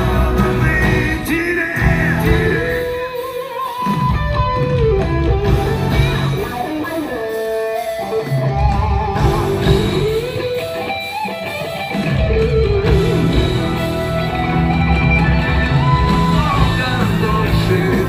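Live rock band playing: electric guitars over drums and bass, with a gliding melody line on top and the low end thinning out briefly a few times.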